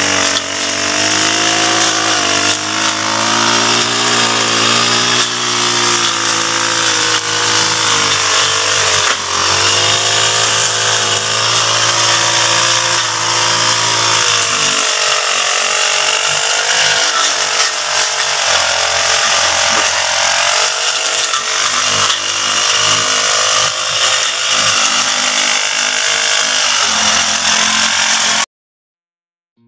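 Small two-stroke brush cutter engine running loud and steady, its pitch drifting up and down as the throttle is worked. It cuts in abruptly at the start and cuts off abruptly near the end.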